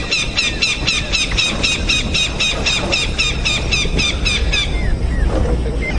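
Bird calling in a rapid run of high, squeaky notes, about four or five a second, that stops near the end, over a steady low rumble.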